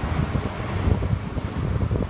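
Steady low rumble of a moving vehicle, with wind and road noise.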